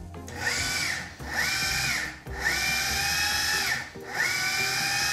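Food processor motor pulsed four times, each burst a whine that rises as the blade spins up and falls away as it stops, the last and longest still running at the end. The blade is working ice water into a flour, butter and shortening pie-dough mix.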